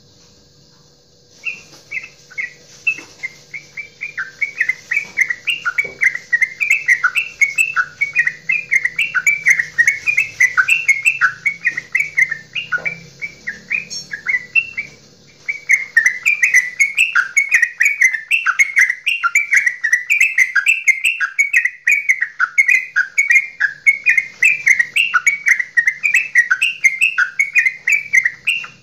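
Yellow-vented bulbul (trucukan) singing its long chattering 'goklikan' song: fast bubbly notes at about four a second, starting about a second and a half in, breaking off for a moment about halfway, then running on again.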